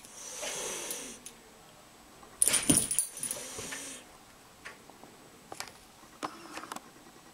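Domestic cat hissing at a dog and swatting, with a sharp jingle of collar tags during the swat about two and a half seconds in, followed by a few small taps and rustles.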